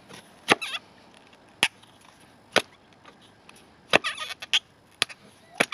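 Old Puma carbon-steel hunting knife chopping into a hard eucalyptus branch: six sharp knocks of the blade biting the wood, about a second apart, with a short scratchy rustle after the fourth.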